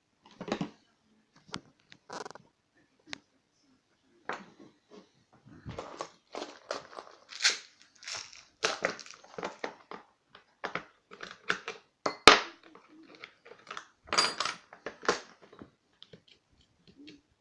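Irregular metal clicks, knocks and scrapes of a picked lock being taken apart by hand, tools and small parts clinking, with one sharp knock about twelve seconds in.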